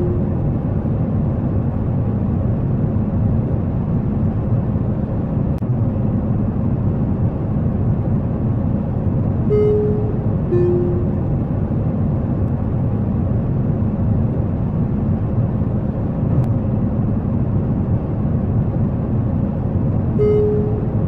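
Airliner cabin noise in flight: a steady low rumble of engines and airflow, broken twice by the two-note cabin chime, a higher note then a lower one, about halfway through and again at the very end.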